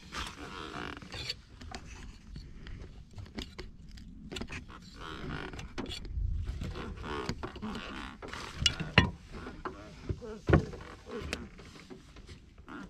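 Irregular knocks, clicks and rattles of a hook fishing line and its gear being hauled in by hand, with a few sharper knocks about two-thirds of the way through.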